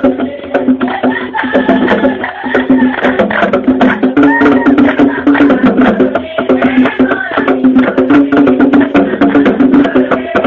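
Live outdoor percussion music: fast, dense drum and wood-block strikes with voices singing over them and a steady held tone underneath.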